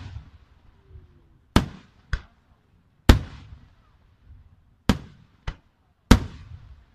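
Aerial firework shells bursting overhead in about six sharp bangs at uneven intervals, each trailing off in a short rumble. Twice a loud bang is followed by a smaller one about half a second later.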